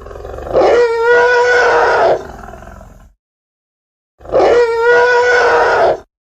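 Imagined large hadrosaur calls, a sound-designer's dinosaur effect: two loud, drawn-out calls, each holding one steady pitch. The first builds up, holds, and fades out over about three seconds; the second starts about four seconds in, lasts about two seconds, and stops abruptly.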